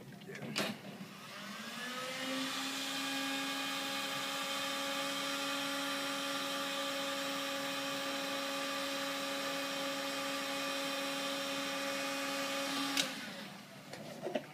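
Handheld heat gun switched on with a click, its fan motor winding up to a steady whine over a rush of blown air. It is switched off with a click near the end and spins down.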